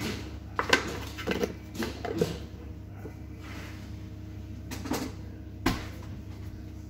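Kitchen clatter: a string of short knocks and bumps of utensils and containers, bunched in the first couple of seconds with two more near the end, over a steady low hum.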